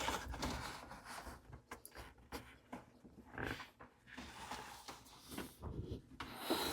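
Faint, scattered handling noises: a battery being fastened into a WaveRunner's battery tray with its hold-down strap, with short clicks, light knocks and rustles.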